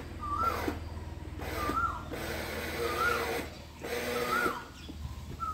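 Electric kids' ride-on excavator's sound panel playing a repeating electronic effect: a short rising-and-falling chirp about every second and a quarter, over lower shifting tones.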